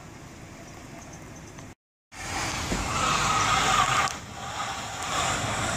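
A car on an ice-covered street, its engine running and its tires spinning and hissing on the ice. The sound cuts out briefly about two seconds in, then comes back louder with a wavering whine.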